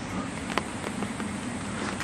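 Battery-powered tabletop somen slider running, its small motor humming steadily while the water swirls around the tray, with a faint click about half a second in. The noodles are not circling freely.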